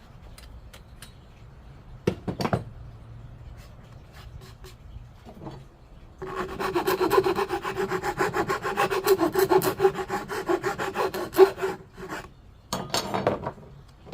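Fast, even rasping strokes for about six seconds, a hand tool scraping against a hard surface, with a few sharp knocks before it and a shorter burst of strokes near the end.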